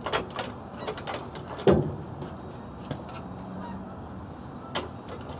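A few sharp metal knocks and clunks from work on a pickup truck's door and its welded-on hinges, the loudest just under two seconds in and another near the end. Birds chirp faintly in the middle.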